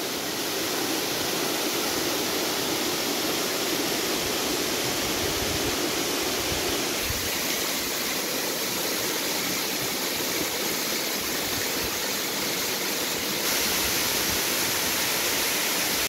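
Kuzalan Waterfall: many thin streams of water falling and splashing down a mossy rock face, a steady rush of water, its flow low in a dry year. It gets slightly louder about three-quarters of the way through.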